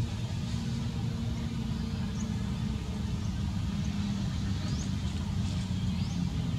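A steady low rumble, with faint, short, high rising chirps several times through it.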